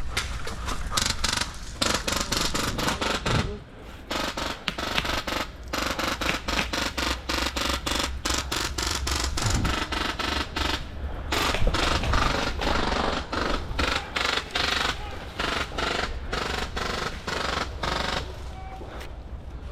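Airsoft guns firing on full auto: long runs of rapid clicking shots, with short breaks about four seconds in and again about eleven seconds in.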